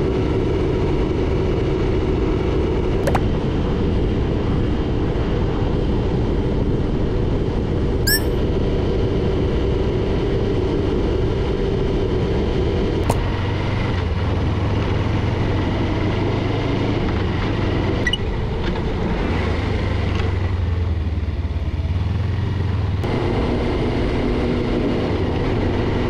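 Car driving on the road: steady engine and tyre noise, the engine note shifting abruptly a few times.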